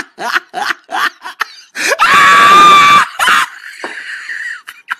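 Rapid laughter in short bursts, about three a second, then a loud scream about two seconds in, held for about a second, with a shorter cry just after.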